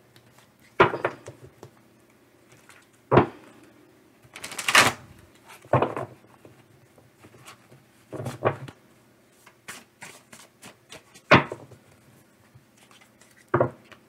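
A deck of tarot cards being shuffled by hand: about eight sharp card clacks and slaps at uneven gaps, with a brief fluttering riffle just before five seconds in.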